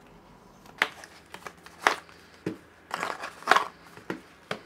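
Cardboard accessory boxes and kit being handled on a desk: a string of short knocks, taps and rustles as things are picked up and set down, the loudest about three and a half seconds in.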